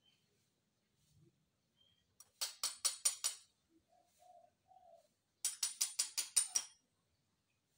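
A caged dove giving three short, low cooing notes, between two louder bursts of rapid rasping clicks at about seven a second.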